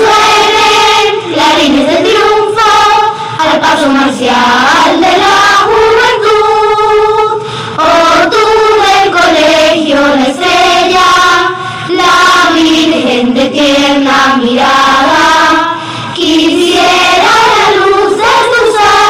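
A choir singing the school hymn in Spanish, in phrases that rise and fall in pitch, with short breaks between phrases.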